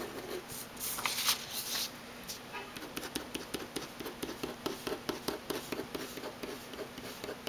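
Uni-Ball Vision RT 0.6 mm rollerball pen scratching on paper as a row of small crosses is drawn, short strokes about three or four a second from about three seconds in. Before that, a hand rustles and slides across the sheet.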